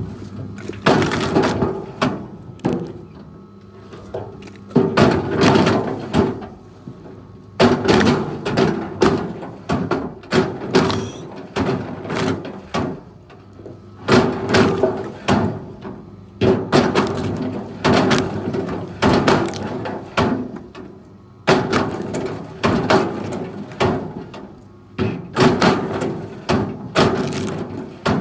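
Wood cracking and splintering in repeated loud bursts, roughly every two to three seconds, as a heavy machine breaks up timber, over a steady engine drone.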